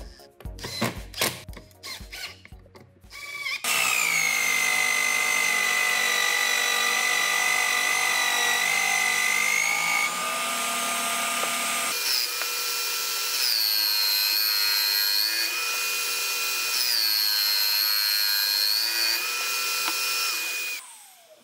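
Cordless impact driver driving screws in a few short rattling bursts, then an electric drill driving a homemade drum sander runs with a steady whine, its pitch sagging briefly a few times in the second half, before it stops near the end.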